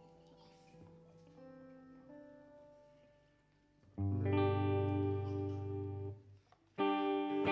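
Opening of a pop-rock song: quiet, sustained electric guitar notes, then about four seconds in a loud full chord with bass rings for about two seconds and stops suddenly. Another loud chord is struck near the end.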